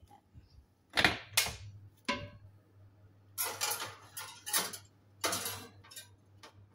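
Oven door pulled open with two sharp clunks, then a glass baking dish scraping and clinking as it is slid onto the oven's metal wire rack. A low steady hum runs underneath.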